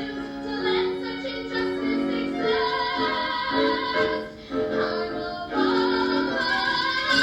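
Voices singing a musical theatre trio number over music, holding long sustained notes.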